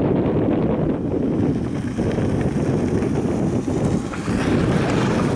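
Wind buffeting the camera microphone: a steady low rumble, with a brighter hiss joining in near the end.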